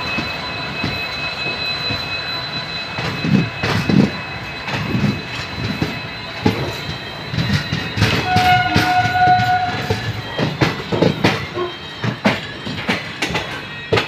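A WDP4D diesel-electric locomotive (EMD/General Motors design) under way, with a steady high jet-like whine over a rumble, and wheels knocking over rail joints. A train horn sounds about eight seconds in and is held for about a second and a half.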